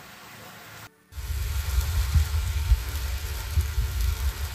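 Chicken heads sizzling on a wire rack over charcoal. From about a second in, a heavy, uneven low rumble of air buffeting the microphone from a fan waved over the coals covers it.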